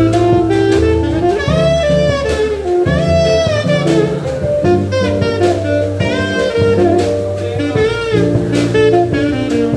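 Taiwanese-made alto saxophone with a Peng mouthpiece, played unamplified, carrying a jazz melody of held notes with vibrato over a live band with drums.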